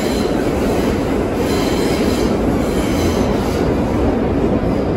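Vintage R9 subway car in motion, heard from inside the car: a steady, loud rumble of steel wheels on the rails.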